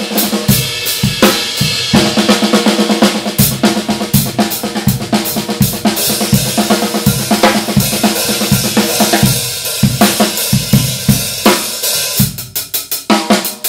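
Drum kit played in a steady groove: snare, bass drum and toms with Paiste 2002 Sound Edge 14-inch hi-hats and cymbals. Near the end the playing thins out to lighter, separate evenly spaced strokes.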